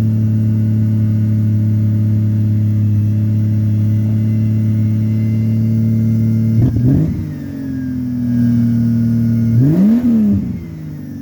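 Jeep Cherokee engine running steadily, revved up and back down briefly twice, near the middle and near the end.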